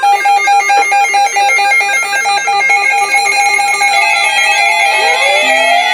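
Several NOAA weather alert radios sounding their alarms at once for a Severe Thunderstorm Warning: a loud, rapidly pulsing beep tone with other beeping tones over it. Near the end, siren-like rising and falling sweeps join in.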